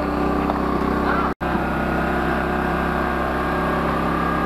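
Steady drone of a small engine running at constant speed. The sound cuts out completely for an instant about a second and a half in.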